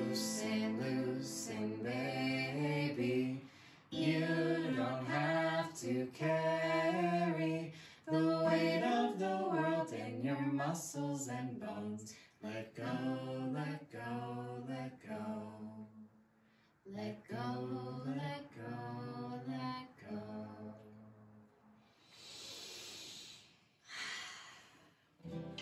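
Several voices singing a slow, gentle melody together with little or no instrumental backing, the singing fading away about 20 seconds in. Near the end come two soft, breathy exhale-like sounds.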